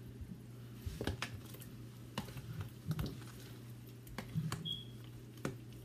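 Shrimp being stirred and coated in a thick, wet cornstarch-and-breadcrumb batter paste in a plastic container: soft squishing with scattered light clicks of a spoon against the container, over a low steady hum.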